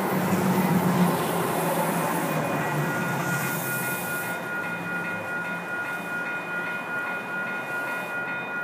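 Metro Blue Line light-rail train pulling away from the platform, its running noise slowly fading. From about two seconds in, a steady high whine at several pitches sits over it.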